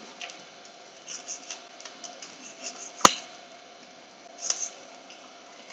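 Chef's knife slicing through a cooked steak on a wooden cutting board, with light scrapes and ticks of the blade against the board and one sharp knock about three seconds in.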